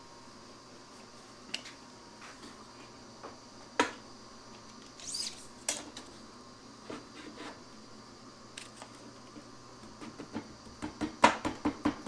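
Scattered light knocks and clicks of hands handling wood and hardware at the bench. There is a short scrape about five seconds in and a quick flurry of taps near the end.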